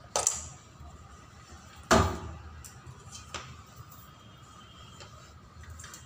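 A refrigeration manifold gauge set and hand tools knocking on a concrete floor: two sharp metallic knocks with a short ring, the second, about two seconds in, the louder, then a few lighter clicks, over a faint steady hum.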